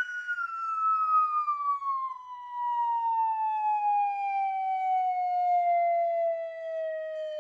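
A single siren-like tone sliding slowly and steadily down in pitch, held without a break.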